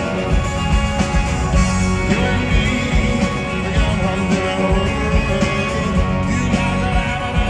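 Live rock band playing through a large concert PA: strummed acoustic guitar, electric guitars, bass and a steady drum beat, heard from the audience.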